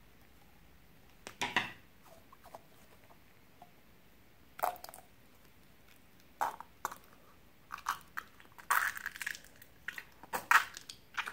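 Short, irregular crunchy, crackling squishes as a knife and stick work a white foamy filling into glossy slime in a glass bowl, a few isolated ones at first, then coming thicker and louder towards the end.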